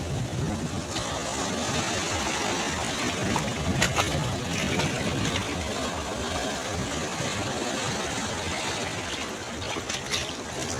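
Sea waves washing onto the shore in a steady rumbling surf noise, with a few brief sharp crackles about 4 seconds in and again near the end.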